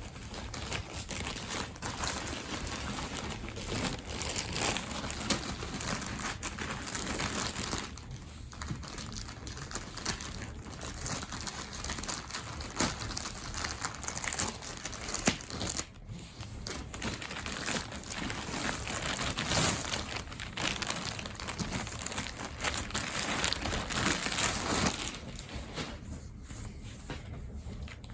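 Packaging around a new martial-arts gi crinkling and rustling as it is handled and pulled at, with dense irregular crackles throughout.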